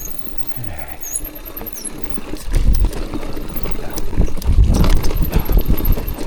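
Mountain bike rolling down a rough, muddy trail: a low rumble with rattling and knocking from the tyres and frame over the ground, which gets louder and busier about two and a half seconds in.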